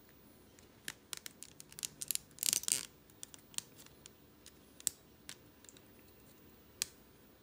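Small clicks and scrapes of hard plastic as a length of 3D-printer filament is pushed through the holes of 3D-printed finger joints, with a louder scraping rustle about two and a half seconds in and a few single clicks after.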